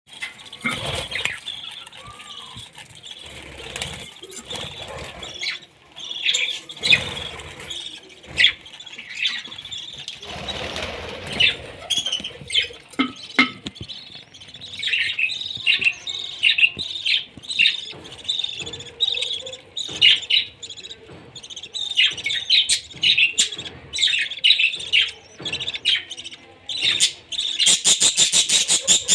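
Budgerigar chicks and adult budgies in a nest box chirping and squawking with many short high calls, the chicks begging as the adults tend them. Rustling and knocks come through in the first half, and near the end there is a fast run of repeated calls.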